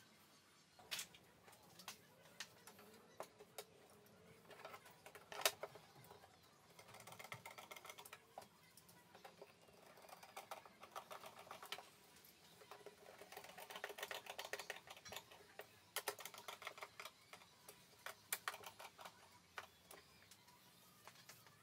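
Hand screwdriver turning screws into the particleboard side of a flat-pack drawer to fix its runner. It makes faint, rapid clicking and creaking in several spells a second or two long, with a few single knocks in the first few seconds.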